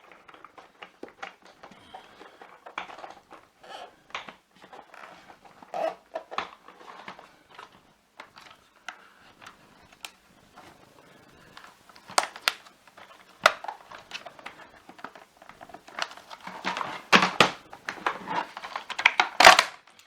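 Plastic housing of a Shark vacuum power nozzle being worked by hand: scattered small clicks and rattles, then loud sharp plastic cracks and snaps in the last several seconds as the stiff top cover is forced apart.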